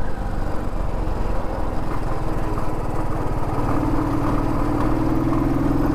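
Royal Enfield motorcycle engine running steadily at cruising speed on the open road, with wind and road noise rushing past; the engine note firms up a little about halfway through.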